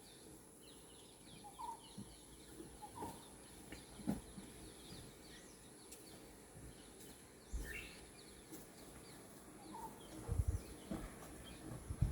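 Faint outdoor ambience with many small bird chirps, and a few low thumps near the end.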